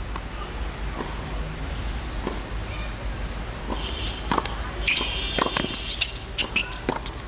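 Tennis ball bounced a few times with faint ticks before the serve, then from about four seconds in a rally: sharp pops of racket strings hitting the ball and the ball bouncing on the hard court, with a few short high squeaks of shoes on the court.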